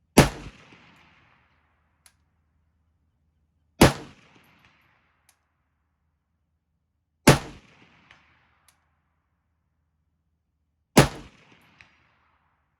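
Four single rifle shots from a Chinese Mac 90 AK-47 variant in 7.62x39mm, fired slowly about three and a half seconds apart, each echoing briefly. About a second after most shots comes a faint tick, typical of a bullet striking a steel plate at 200 yards.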